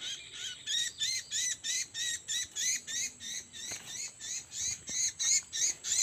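Gelatik batu (cinereous tit) calls played from a mobile phone as a trapping lure: a fast, very regular series of short high chirping notes, about three to four a second, that starts abruptly.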